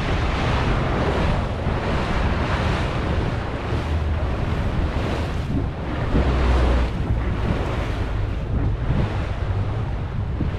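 Wind buffeting the microphone over the wash of ocean water around a small open boat, with a low rumble that swells briefly about six seconds in.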